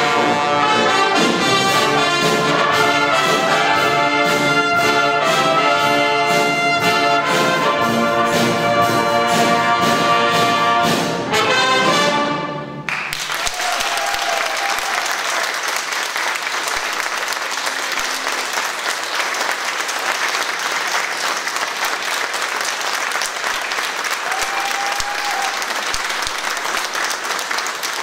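Brass band of trumpets, trombones and saxophones playing the closing bars of a piece, which ends a little before halfway through. Then the audience applauds steadily.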